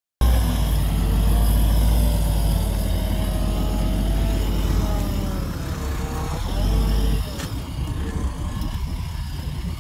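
Heavy diesel earth-moving machinery running with a deep low rumble. It cuts in abruptly at the start and eases off a little about seven seconds in.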